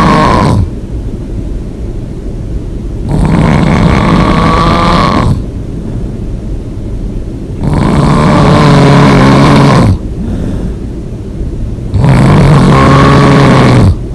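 A person snoring loudly in long, droning snores about two seconds each, one every four to five seconds: one ends just as the clip begins, then three more follow. A quieter low rumble runs between them.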